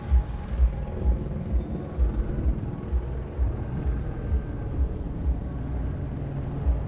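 City traffic rumble recorded from a moving bicycle, with low thumps on the microphone about twice a second.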